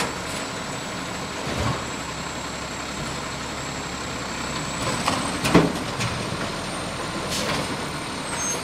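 Garbage truck engine running steadily at low speed, with several short knocks from the truck; the loudest comes about five and a half seconds in.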